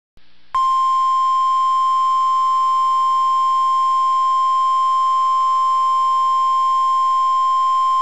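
NOAA Weather Radio 1050 Hz warning alarm tone from station KHB52: one steady, loud, unwavering beep that starts about half a second in and holds. It is the attention signal that comes before a broadcast tornado warning.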